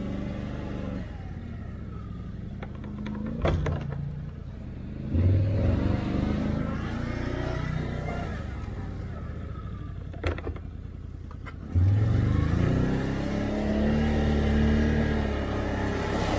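Can-Am Outlander 850 ATV's V-twin engine revving in surges as it works over rough trail, its pitch climbing sharply about five seconds in and again near twelve seconds. A few short sharp knocks come between the surges.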